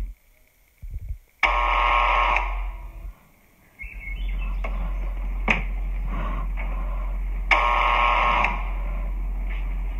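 An electronic alarm-like tone sounding twice in blasts of about a second each, over a low steady hum.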